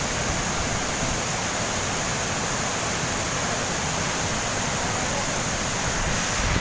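Waterfall pouring, a steady, even rush of falling water with no breaks.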